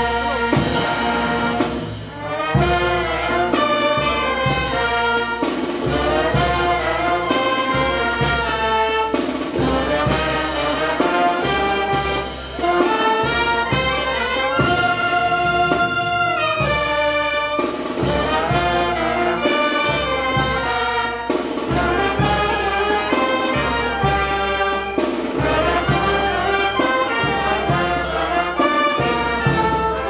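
Brass band music, trumpets and trombones playing held chords over a steady beat.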